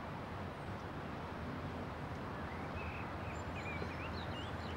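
Outdoor ambience: steady wind noise, with a few faint bird chirps from about two seconds in.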